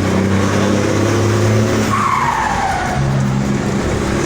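Volkswagen 24.250 truck's diesel engine running steadily under way, its note dropping and changing about two seconds in, with a brief falling whine at the same moment.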